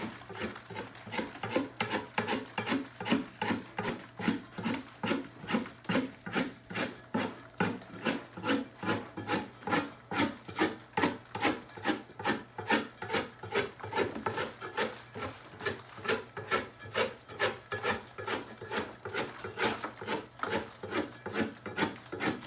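Hand scraper scraping popcorn ceiling texture, said to contain asbestos and wetted from a spray bottle, in quick repeated strokes at about three a second.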